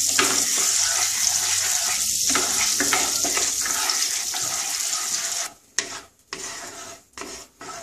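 Oil and butter sizzling as they heat in a kadai, the butter foaming. About five and a half seconds in the sizzle cuts off suddenly, leaving separate scraping strokes of a silicone spatula stirring the fat in the pan.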